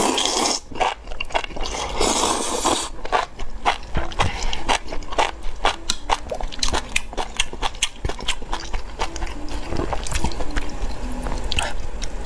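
Close-miked chewing of spicy enoki mushrooms: a quick, uneven run of wet, crunchy clicks from the mouth, with short noisier stretches at the start and about two seconds in.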